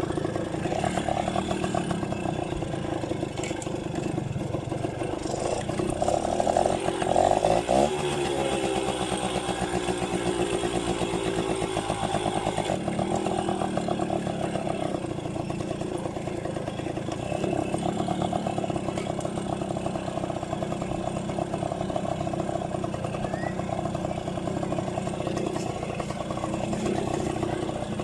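Yamaha V50 moped's small two-stroke single-cylinder engine running under way. It gets louder about six seconds in, then its pitch falls away a couple of seconds later and it settles into a steady run.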